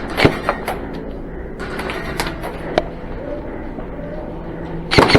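A few sharp clicks and knocks over a steady hum, then near the end a burst of full-auto airsoft gun fire starts, about ten shots a second.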